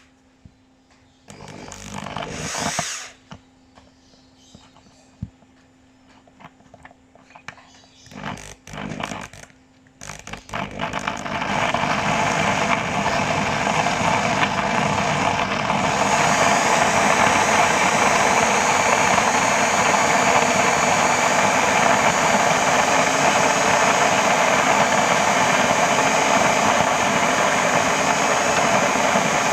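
Electric coffee grinder grinding beans, running steadily and loudly from about ten seconds in. Before that come two short bursts of noise.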